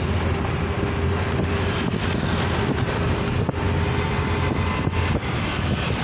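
Steady road and engine noise of a moving vehicle heard from inside it, with wind rushing past an open window.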